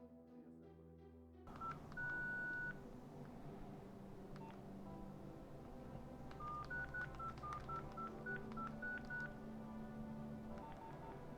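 Nokia 6070 keypad tones as its buttons are pressed: short single beeps at a few different pitches. There is one longer beep about two seconds in, then a quick run of about a dozen beeps, and a few fainter ones near the end.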